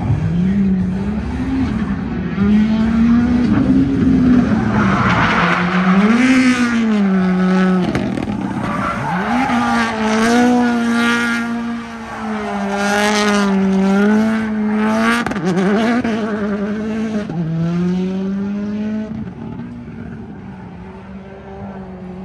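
Drift car's engine held at high revs, its pitch wavering up and down, with tires squealing loudly through the middle of the run as it slides. The sound fades toward the end.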